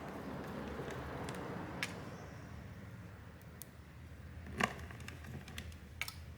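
A few sharp clicks and taps of small hand tools and phone parts being handled during phone reassembly, the loudest about four and a half seconds in, over a steady low hum and some soft rustling near the start.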